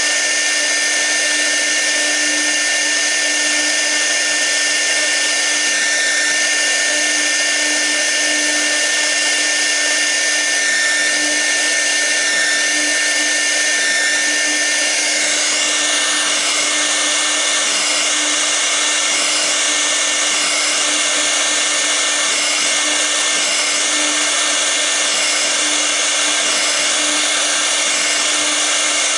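CNC router's 6 kW air-cooled spindle running steadily while a V-bit carves, a constant machine whine and cutting noise. A steady high whine drops out about halfway through, and after that the higher tones waver up and down.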